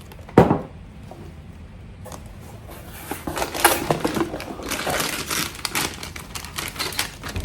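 Packaging being handled and crinkled while items are unpacked from a box: one sharp knock about half a second in, then a few seconds of dense crackling rustles.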